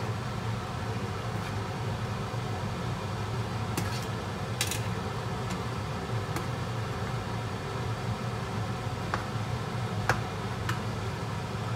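Steady low hum of a kitchen fan, with a few light clicks of a metal spoon against a nonstick frying pan as a tomato-and-pepper sauce is stirred.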